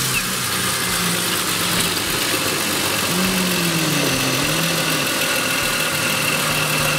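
Mercedes-Benz C-Class 3.0-litre naturally aspirated V6 petrol engine idling steadily. It is running during an automatic transmission fluid flush of the 722.9 seven-speed gearbox, so that the gearbox pump pushes out the old fluid.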